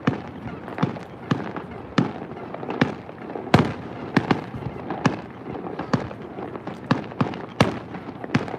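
Fireworks going off at a display: an irregular run of sharp bangs, about two a second, over a continuous background of fainter bangs and noise. The loudest bangs come about three and a half and seven and a half seconds in.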